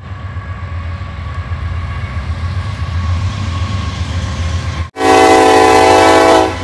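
A train passing as a steady low rumble with a faint steady tone over it. After about five seconds it cuts suddenly to a loud locomotive horn blast lasting about a second and a half, heard from inside a car.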